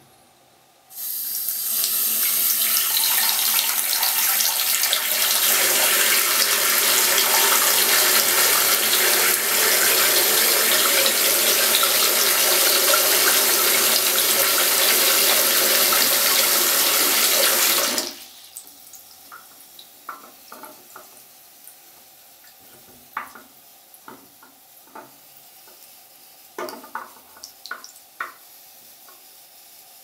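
Bathroom sink tap running hard into the filling basin, a steady rush of water that starts about a second in and stops abruptly a little past halfway as the tap is shut. Scattered small clicks follow.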